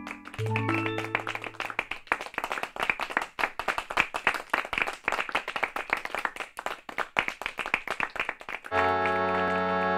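Hand clapping, a small audience applauding in dense irregular claps, after a short melodic music phrase at the start. Sustained keyboard chords of music come in near the end.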